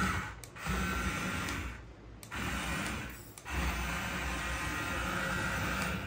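Small electric gear motors of a toy remote-control excavator whirring as the joystick remote moves its arm, in three runs with short pauses between, the last one the longest.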